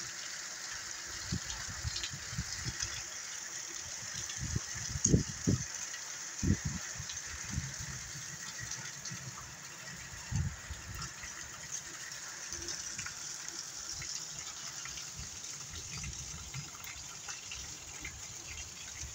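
Heavy rain pouring steadily, with irregular low rumbles of wind gusting on the microphone, strongest about five to seven seconds in.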